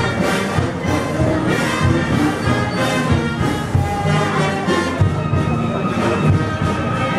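Guatemalan procession brass band playing a processional march at a steady, loud level, with brass carrying the melody over a regular beat.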